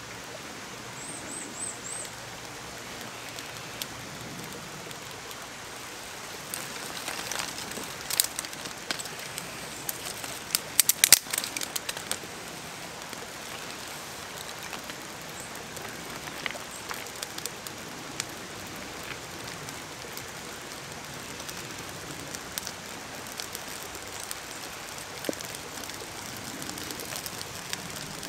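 Crackling and snapping of a newly lit birch-bark and twig fire being fed kindling by hand, with a cluster of sharp cracks around the middle and scattered ones later, over a steady background hiss.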